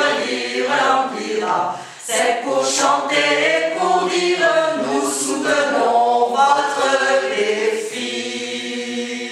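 Mixed choir of men and women singing a French song. It comes to its close on a long held chord near the end.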